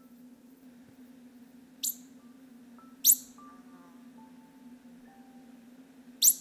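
Japanese pika giving three short, shrill squeaking calls: a softer one about two seconds in, a louder one about a second later, and another near the end. Soft music with scattered mallet-like notes plays faintly underneath.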